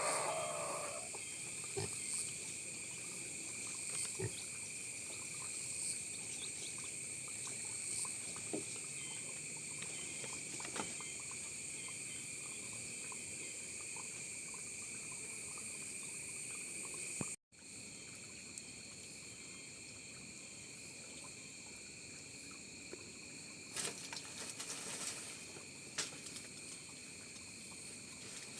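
Steady insect chorus, several high shrill tones held without a break, with scattered small clicks and knocks. The sound drops out for an instant about 17 seconds in.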